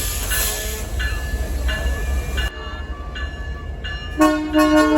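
Diesel locomotive of the CPKC Holiday Train rumbling past with a bell ringing in an even rhythm; about four seconds in its air horn sounds a run of short, loud chorded blasts.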